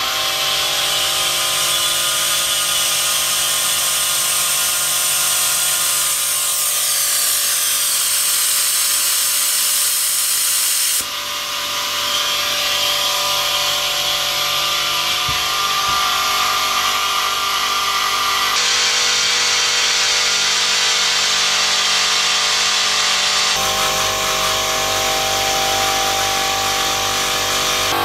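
Clarke 100-litre silent air compressor running steadily, pumping up its tank from empty. The tone shifts suddenly three times along the way.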